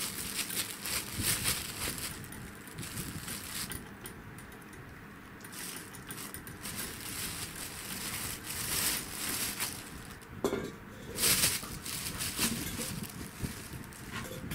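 Thin plastic shopping bag crinkling and rustling in irregular bursts as a kitten moves inside it and a dog noses into it.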